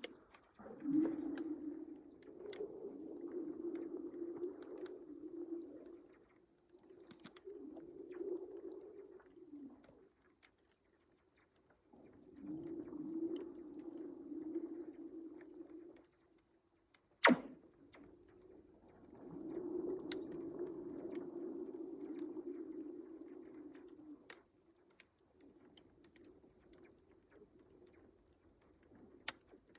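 Lake ice shedding in the spring thaw, humming in four long low moans of a few seconds each. Small ticks are scattered through it, and about 17 seconds in a single sharp crack sweeps down in pitch like a zap.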